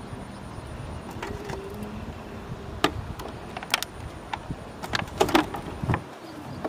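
Clatter of gear being handled on stones: a plastic tub with a steel plate in it is picked up, giving several sharp knocks and clinks, loudest about three seconds in and again around five seconds, over a steady low rumble.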